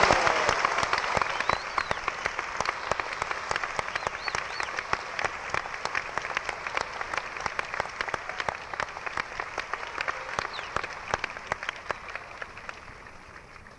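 Live concert audience applauding, with a few whistles, loudest at the start and dying away near the end.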